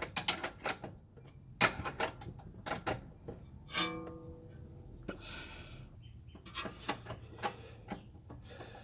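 Metal tool clicks and clinks from a 21 mm socket and wrench snugging up the control arm bolts. One short metallic ring sounds a little before the middle.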